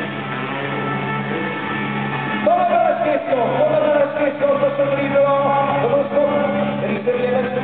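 Rock music with a singer; the sung line comes in about two and a half seconds in over a steady, driving backing.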